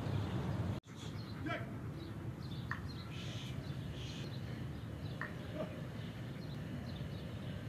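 Outdoor ambience: a steady low background hum with a few short bird chirps scattered through it. The sound cuts out briefly about a second in.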